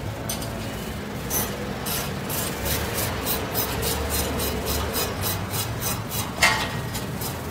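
Large clear plastic protective cover crinkling and rustling as it is dragged off a motorcycle, in quick repeated crackles with a sharper one near the end.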